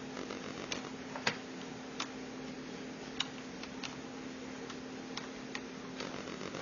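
Irregular small sharp clicks and ticks of a screwdriver and tiny screws being started into a laptop screen's mounting brackets, the loudest about a second in, over a steady low hum.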